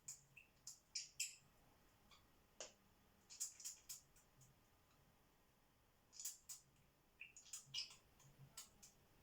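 Pet parrot sneezing in fits: short, sharp sneezes that come in clusters of two to four, several bouts a couple of seconds apart.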